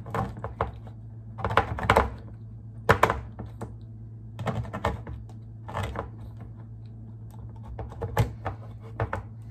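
Manual can opener being worked around the rim of a can, in short bursts of metallic clicking and scraping spaced irregularly.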